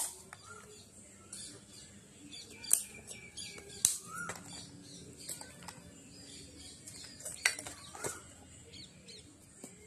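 Hard coconut shell being prised off the kernel with a curved metal tool: a handful of sharp cracks and snaps spread a second or more apart, with quiet scraping between.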